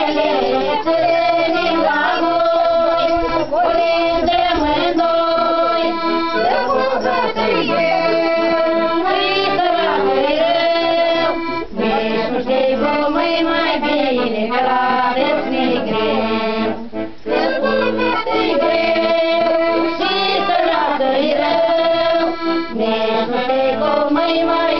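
Piano accordion playing a traditional folk tune in sustained chords and melody, with voices singing along.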